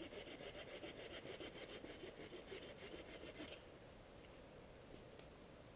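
Faint, rapid rhythmic scraping on wood from hand work on a stick, stopping about three and a half seconds in; a light click follows near the end.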